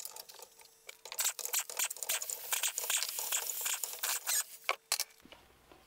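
Ratchet working the cylinder head bolts on a Briggs & Stratton 6.75 mower engine to remove the head: a rapid, dense run of clicking and rattling starting about a second in and stopping shortly before the end.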